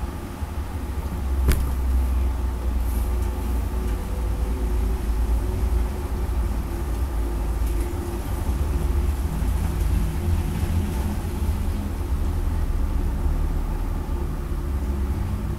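Steady low rumble of background noise with a faint hum, and a single sharp click about one and a half seconds in.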